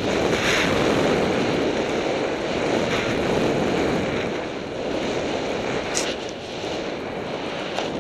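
Wind buffeting the microphone and a snowboard sliding through fresh powder on a fast downhill run, a loud steady rush with a brief sharp hiss about six seconds in.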